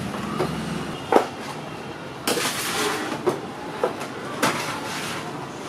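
Metal baking trays clanking and scraping as they are handled and slid into a bakery oven: several sharp knocks, with a scrape lasting about a second a little over two seconds in.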